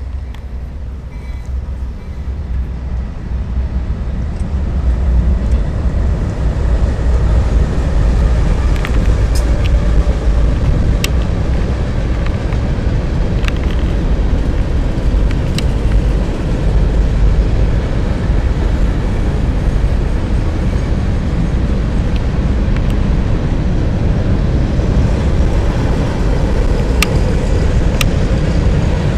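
Diesel freight locomotives, Ferromex units in the lead, passing close by. Their low engine rumble builds over the first few seconds and gives way to the steady rolling of covered hopper cars, with sharp clicks now and then.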